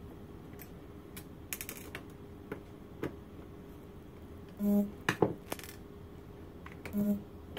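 Small metal clicks and taps from the cover of an Onity HT24 mortise lock cartridge being worked off and the lock's metal parts being handled, in scattered single ticks and a short flurry.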